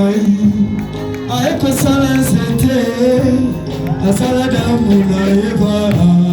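Music with singing over instrumental backing, with a steady beat.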